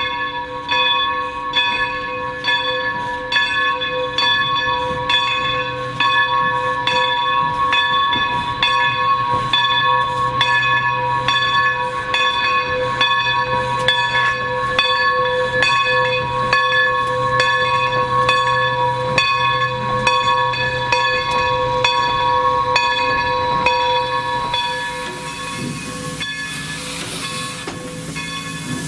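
Steam locomotive bell ringing steadily, struck about one and a half times a second, on a Baldwin 2-8-0 engine. A steam hiss comes in near the end.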